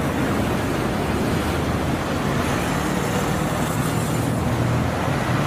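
Double-decker highway coach driving through a city intersection, its engine running steadily under the noise of road traffic.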